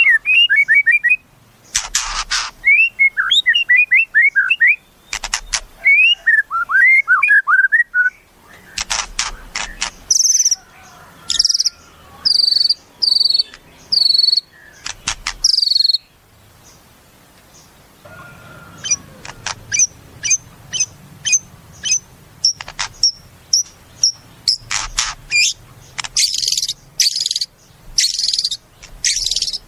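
White-rumped shama (murai batu) singing a varied, loud song of sharp clicking notes, quick runs of rising chirps and high clear whistles, with a short pause about halfway through.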